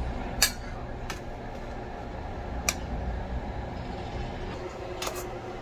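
A few short, sharp clicks of a spoon against a ceramic plate as curry is spooned over rice, the first the loudest, over a steady low hum.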